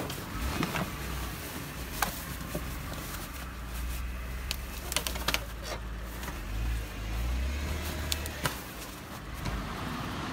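Jeep Wrangler Rubicon's engine running at low revs, a steady low rumble that swells briefly about two-thirds of the way through, with scattered short sharp clicks and snaps over it.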